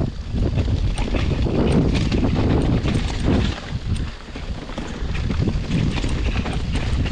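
Wind rushing over the microphone of a bicycle in motion on a trail, mixed with the rolling noise and frequent small rattles and bumps of the ride.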